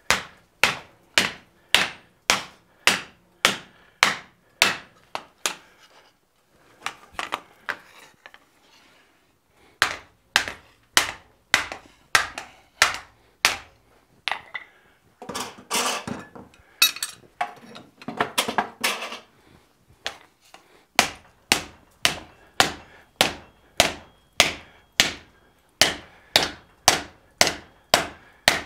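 Hand hammer blows on red-hot 3/16-inch sheet steel lying on an anvil, struck as the steel is folded along its long bend. The blows come in a steady rhythm of about two a second. Partway through there is a lull with a few lighter taps, then a stretch of quicker, clattering hits before the steady rhythm resumes.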